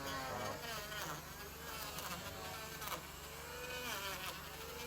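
A small motor's buzzing drone whose pitch wavers up and down, with a few scattered knocks.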